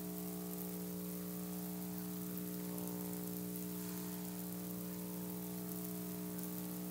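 Steady electrical hum with a layer of hiss: the recording's background noise. It is a low buzzing tone with several higher overtones, holding level without change.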